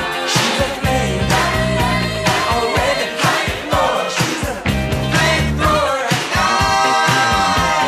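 Studio recording of an ice hockey goal song: singing over a driving beat of drums and bass, with a long held note near the end.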